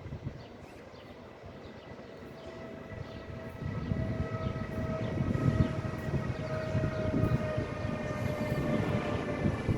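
Siemens Vectron electric locomotive hauling a freight train, its traction equipment giving a steady multi-tone whine that sinks slightly in pitch. The rumble of wheels on rails grows louder from about four seconds in.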